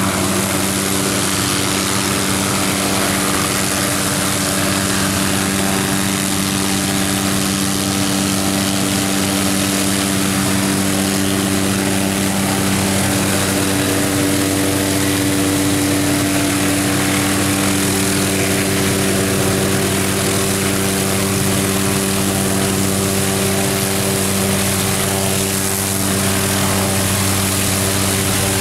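Police helicopter's engine and rotor running steadily: a continuous loud hum with several held tones that stay even throughout.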